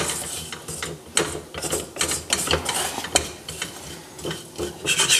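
A wooden spoon stirs and scrapes sugar-coated almonds and hazelnuts around a stainless steel saucepan, making an irregular run of scrapes and clicks as the nuts knock against the pan. The sugar coating has crystallized into a sandy crust and is being heated to melt again.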